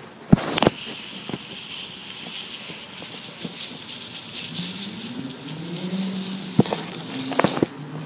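A steady rattling hiss, with a motor vehicle's engine rising in pitch through the second half, as a car pulling away does. A couple of sharp clicks come just at the start.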